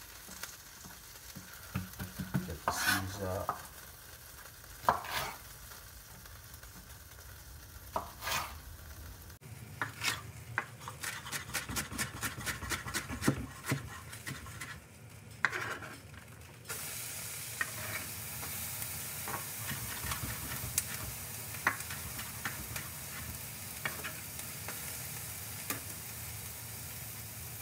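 Kitchen knife chopping a green bell pepper on a wooden cutting board: scattered knocks at first, then a run of quick, even strikes about four or five a second. About two-thirds of the way through, a steady sizzle from a frying pan of hot butter sets in suddenly.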